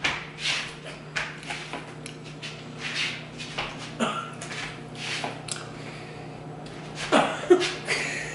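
Short breathy bursts of laughter and gasps, roughly every half second, with a louder laugh near the end; a steady low hum runs underneath.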